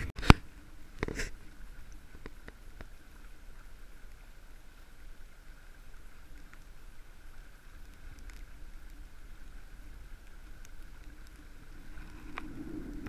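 Boat engine running steadily, heard muffled as a low rumble with a faint hum, with two sharp knocks in the first second or so.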